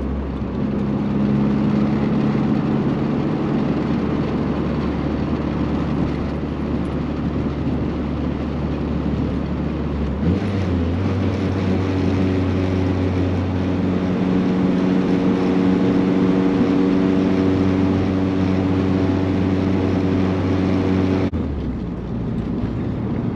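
Cabin drone of a G23-swapped Honda Civic cruising at 2000 rpm in 5th gear: a steady, even engine hum with a deep low note. The drone comes from an exhaust leak at the V-band flange. About two seconds before the end it cuts to a different, smoother cabin hum.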